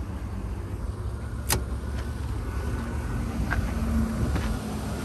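A sharp click of a dashboard switch being flipped in a 1982 Jeep Cherokee Laredo's cab, about a second and a half in, over a steady low rumble. Later come a couple of faint ticks and a low steady hum.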